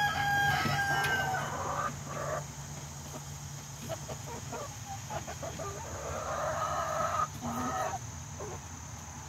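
Chickens clucking and calling close up. A drawn-out call lasts about a second and a half at the start, scattered short clucks follow, and there is another stretch of calling about six to eight seconds in.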